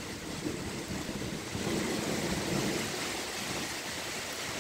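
Steady hiss of light rain falling on clay roof tiles and trees.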